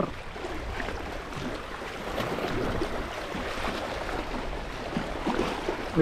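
Seawater lapping and splashing in small, irregular crackles, over a low rumble of wind on the microphone.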